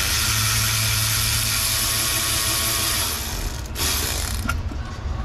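Air ratchet running with a loud hiss of exhaust air for about three seconds, then a brief second burst, backing out a valve cover bolt.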